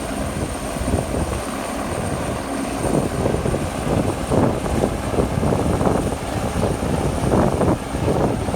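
Helicopter flying nearby, its rotor beating steadily.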